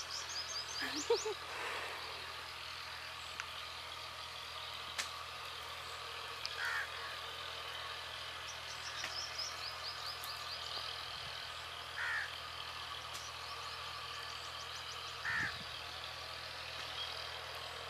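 Crows cawing: three short single caws several seconds apart, over a steady outdoor hiss with quick high bird chirps.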